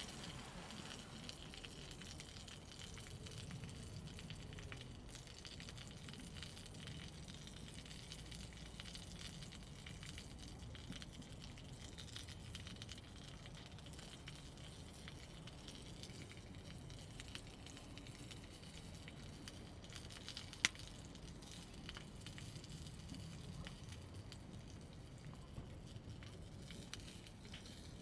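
Wood campfire burning in a fire pit, crackling faintly and steadily over a low rumble, with one sharp pop about two-thirds of the way through.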